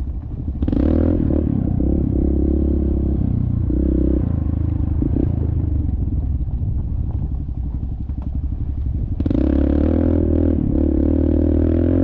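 Dirt bike engine running under throttle on a trail ride: it picks up about half a second in and holds, eases off around four to five seconds in to a lower, choppier running, then opens up again near nine seconds.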